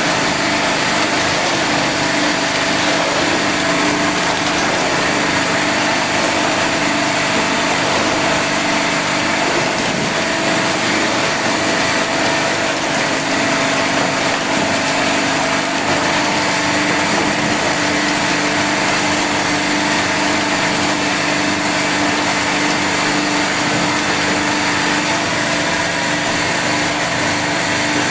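Crystal ice machine running: a steady mechanical hum with a constant whirring hiss.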